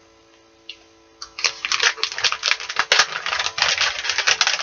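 Plastic soft-bait package crinkling and rustling as it is handled, a dense crackle that starts about a second and a half in.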